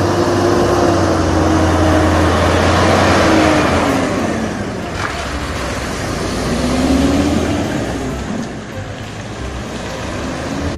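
Diesel engine of a DAF CF semi-truck running as it pulls its trailer round a tight hairpin bend close by, the engine note rising and falling twice over a deep steady drone.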